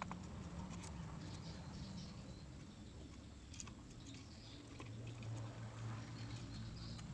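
Faint small clicks and light scratching, typical of handling small parts and tools during a phone repair, over a low steady hum that drops in pitch about five seconds in.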